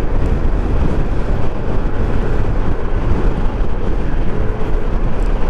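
Yamaha NMAX 155 scooter cruising on a paved road: steady wind rush over the microphone mixed with engine and tyre noise, heaviest in the low end. Near the end a faint short tone rises above it.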